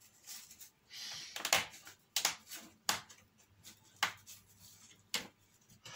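Sharp little clicks and light knocks as thin laser-cut wooden truss braces are pressed by hand into their slots in a model bridge girder, pushed down on their tabs until they seat firmly home. There are about five clicks, roughly a second apart, with soft rubbing between them.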